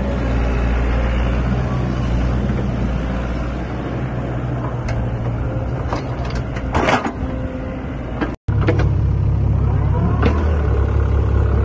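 Sany SY55C mini excavator's diesel engine running steadily while the boom and bucket are worked. There is a sharp metallic clank about seven seconds in, and the sound cuts out for an instant a moment later.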